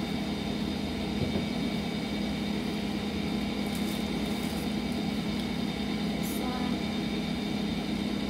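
A steady mechanical hum of the room, with a few faint light clicks of plastic tumblers being handled about halfway through.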